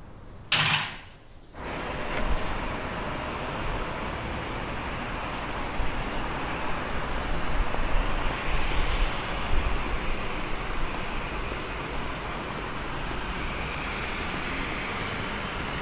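A front door is shut with a loud bang about half a second in. Then a steady wash of outdoor traffic noise with a low rumble, the ambience of an airport car park.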